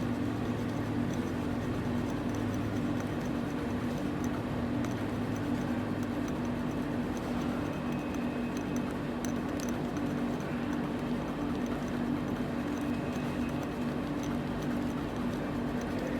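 Steady low machine hum with faint, evenly repeated ticking.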